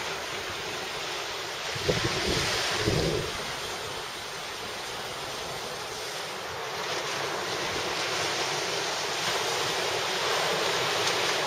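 Surf breaking and washing up the shore as a steady rush, with wind buffeting the microphone in low gusts about two and three seconds in.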